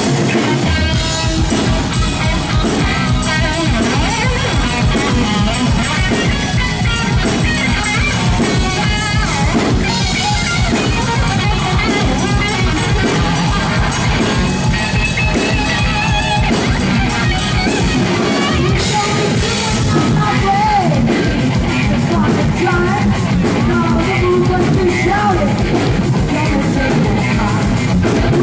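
Live rock band playing loud: electric guitar over a driving drum kit beat, with a singer's voice in the mix.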